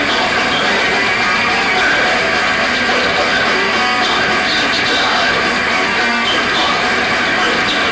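Death metal band playing live and loud: distorted electric guitars over bass and drums in a dense, unbroken passage.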